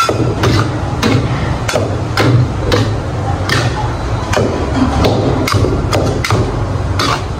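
Metal wok spatulas striking a steel wok as a large batch of fried rice is chopped and tossed: sharp clanks about two a second, irregular. Under them runs the steady low roar of the gas burner.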